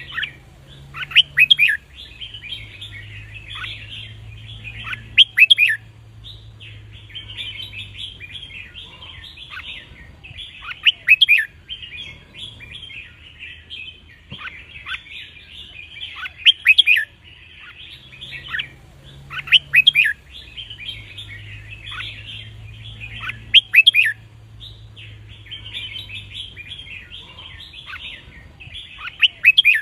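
Red-whiskered bulbuls singing: loud, short whistled song phrases come every few seconds over continuous twittering.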